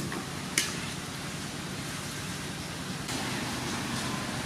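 Water boiling hard in a large aluminium wok over a fire, a steady bubbling rush. A sharp metallic click comes about half a second in, and near the end water splashes back into the pan as it drains from a mesh strainer.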